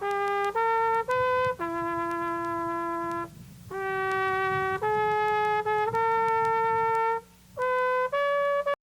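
Solo trumpet playing a slow melody in single held notes, phrase by phrase, cut off abruptly near the end.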